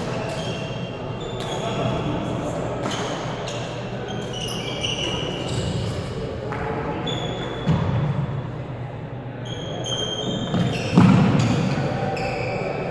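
Badminton doubles rally: court shoes squeaking in short bursts on the wooden floor, sharp racquet strikes on the shuttlecock, and a heavy thump near eight seconds in and a louder one about eleven seconds in, over background voices in the hall.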